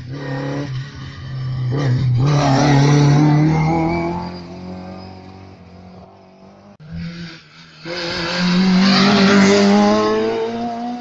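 Rally car engine revving hard at full throttle, its pitch climbing as it accelerates. The sound swells loudest about three seconds in, eases, then rises in pitch and swells again near the end.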